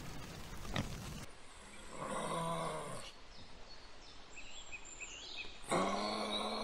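Pig grunting, then two drawn-out voiced calls, one about two seconds in and a louder one near the end, with faint bird chirps between them.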